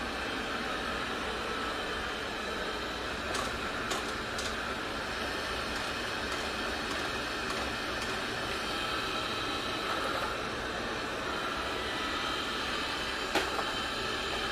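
Inik i9 robot vacuum running with a steady whirring hum from its suction fan and brushes. A few light clicks come in around three to four seconds in, and a sharper one comes near the end.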